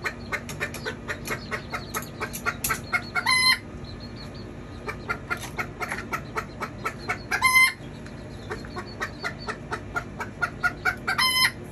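Kikiriki bantam chickens cackling: three runs of quick clucks, each ending in a short, loud, high squawk.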